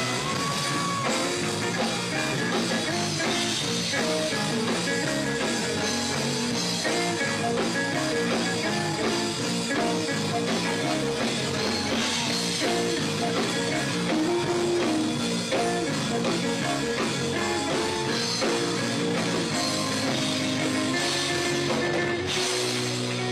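Church band playing an instrumental gospel vamp with guitar, organ or keyboard and drums, steady and loud, after the singing of the song has stopped.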